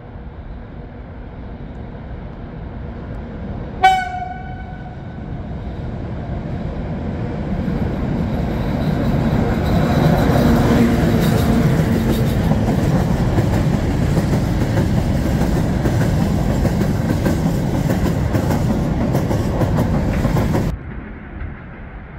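Freight train of open-top wagons passing: one short train-horn blast about four seconds in, then the rumble and wheel clatter of the wagons build up and stay loud until the sound cuts off abruptly near the end.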